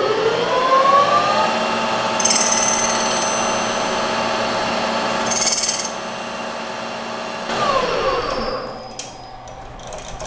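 Metal lathe spinning up to speed and running while the tool takes a facing pass across an aluminum hard-drive platter, with two brief high-pitched ringing squeals of the tool chattering on the aluminum. About seven and a half seconds in, the lathe motor winds down with a falling whine.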